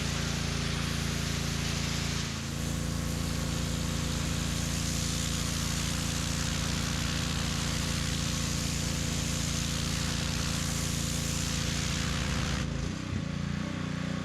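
Pressure washer running while spraying pavers: a steady motor drone under the hiss of the high-pressure water jet, with a brief dip about two seconds in. It cuts off suddenly at the end.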